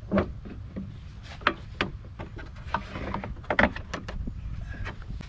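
Irregular clicks and knocks of a riding mower's double-bagger brackets and fittings being handled and fastened, about a dozen sharp hits over a low steady rumble.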